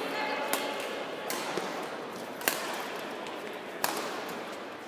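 Badminton rackets striking a shuttlecock in a rally: four sharp cracks about a second apart, the third the loudest, over steady background noise.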